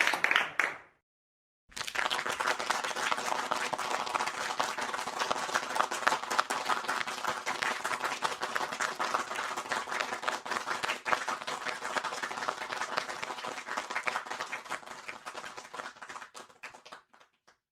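Audience applause: many hands clapping in a dense, even crackle that starts about two seconds in and slowly dies away near the end.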